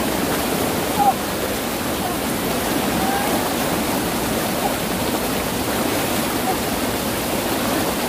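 Swollen mountain stream rushing over rocks in white water, high and fast after days of typhoon rain: a steady, dense rush of water.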